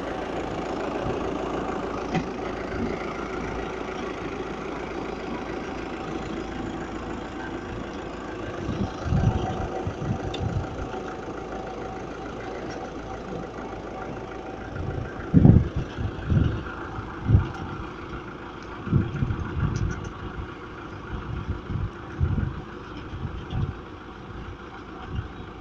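Peg-cutting machine running steadily with a constant motor hum, with irregular low thumps from about nine seconds in.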